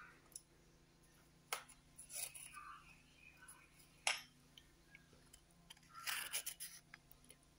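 Faint, scattered clinks and taps of steel kitchenware being handled, with two sharper knocks about a second and a half and about four seconds in.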